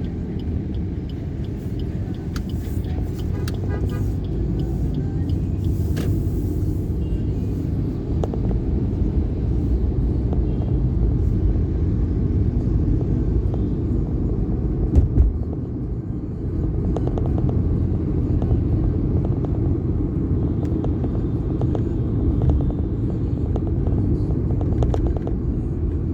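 Steady low rumble of a vehicle driving along a road, with one short loud thump about fifteen seconds in.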